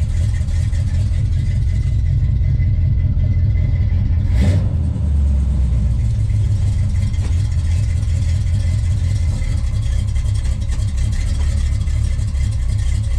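Old Oldsmobile Cutlass V8 engine idling steadily, with a single sharp knock about a third of the way in.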